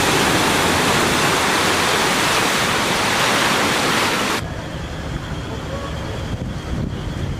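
Ocean surf breaking and washing over rocks, a loud steady rush of foaming water that cuts off suddenly about four seconds in. A quieter low rumble follows.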